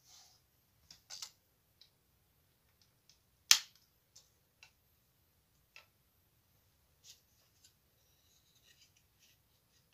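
Scattered light clicks and taps, with one sharp, much louder click about three and a half seconds in.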